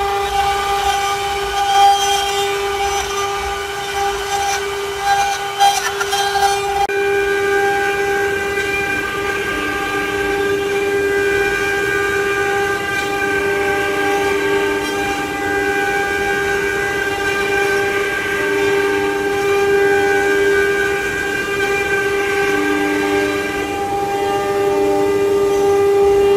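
CNC wood-carving router running: a steady whine made of several tones, with some tones shifting or coming and going as the machine moves, and a few clicks in the first several seconds.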